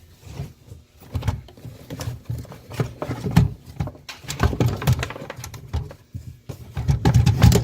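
Airsoft rifle knocking and scraping against wooden 2x6 boards and a plastic toolbox as it is set into a notched slot: a string of irregular knocks and rattles, loudest near the end.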